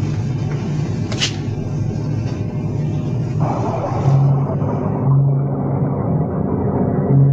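Dark suspense score over a low rumble, with a single sharp click about a second in and deep held notes repeating in the second half.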